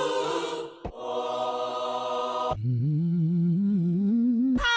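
Gospel vocal samples triggered one after another: sustained choir-like chords that cut off abruptly twice, then a solo voice sliding upward with vibrato, and a new, higher voice with vibrato starting near the end.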